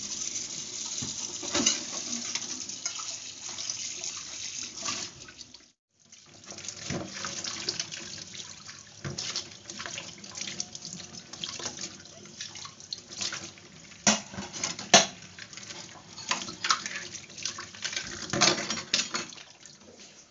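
Tap water running into a stainless-steel kitchen sink as dishes are washed and rinsed by hand, with scattered knocks and clatter of plates and pots. The sound drops out briefly about six seconds in.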